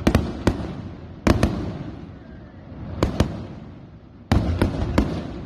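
Aerial fireworks shells bursting: sharp bangs, mostly in quick pairs, in four clusters a second or two apart, each cluster trailing off in a low echoing rumble.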